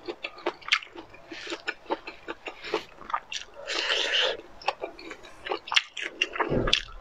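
Close-miked eating: wet chewing with many sharp lip and teeth clicks, and a longer slurp about four seconds in as a piece of food is sucked off the fork. A low thump near the end.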